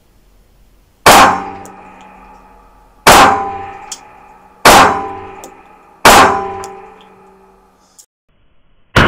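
Four pistol shots from an AMT Automag II in .22 Magnum, fired one and a half to two seconds apart, each with a ringing echo off the indoor range walls. A light click sounds as the pistol is handled, then another shot comes right at the end.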